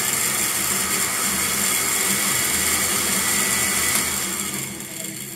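Countertop blender motor running at speed, chopping a jar full of celery stalks with a little water for juice. The sound is steady and begins to die down about four seconds in.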